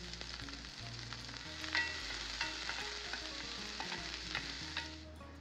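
Chopped onion, green chilli and garlic sizzling in hot oil in a cast iron pan, stirred with a wooden spatula that clicks against the pan several times. The sizzling fades out near the end.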